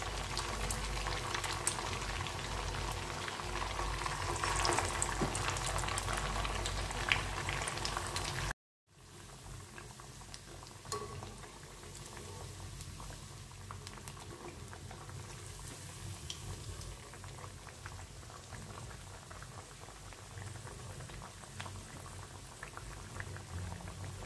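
Poha cutlets deep-frying in oil in a steel kadhai on a low flame: a steady sizzle of bubbling oil. It drops to a quieter sizzle after a cut about eight and a half seconds in.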